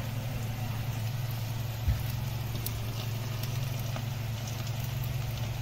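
Breaded chicken wings deep-frying in hot oil in a wok: a soft sizzle with scattered small crackles, over a steady low hum. A single low thump about two seconds in.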